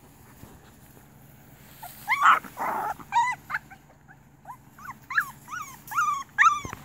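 American Bulldog puppy whining, a run of short high whimpers several a second, starting about three seconds in after a brief harsh sound.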